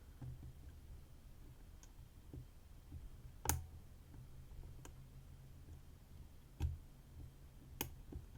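Lock pick working inside a six-pin dimple cylinder lock under tension: a few light, scattered clicks and taps, the loudest about three and a half seconds in and others near seven and eight seconds, as the pick probes for the sixth pin.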